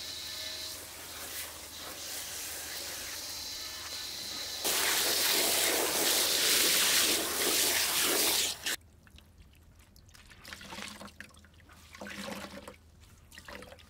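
Water pouring into a stainless steel bowl, a loud rush for about four seconds that stops abruptly. Then quieter splashing as a wet cloth is squeezed and worked in the water.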